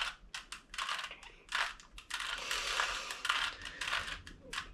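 Plastic 3x3 Rubik's cube being turned quickly by hand, its layers clicking and rasping in a fast, irregular run of turns as a repeated move sequence is worked through, with a denser scraping stretch in the middle.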